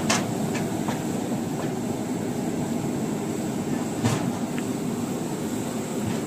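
Large aluminium pot of dal at a rolling boil over an outdoor burner: a steady rumbling roar, broken by a few sharp clicks, the loudest about four seconds in.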